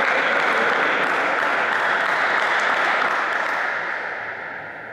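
Spectators applauding, the clapping dying away near the end.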